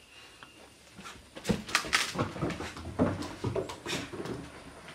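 A dog's short whines and grunts mixed with knocks and footsteps on a wooden porch deck, starting about a second and a half in.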